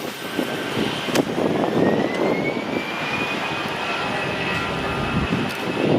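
Jet airliner's engines running: a rushing roar with a thin whine that rises in pitch over a second or two, then holds steady.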